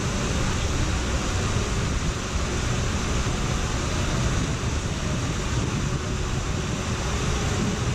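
Steady rushing of water running down a water slide's runout channel and splashing into the pool at its foot.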